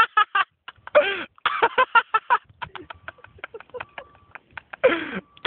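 People's voices whooping and yelling in short bursts, with loud falling hoots about a second in and again near the end; no words are made out.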